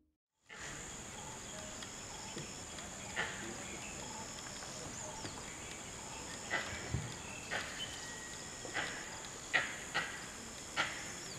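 Langurs giving short, sharp alarm calls, first singly about three seconds in and then more often, one or two at a time, in the second half; langur alarm calls warn of a predator such as a tiger or leopard. A steady high hum of insects runs underneath.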